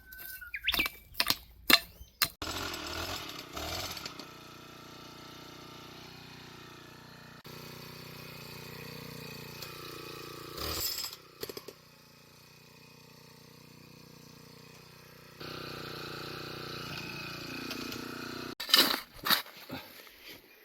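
Hand tools at work on a drainage ditch: a quick run of sharp knocks and scrapes near the start and again near the end, with fainter steady outdoor sound between.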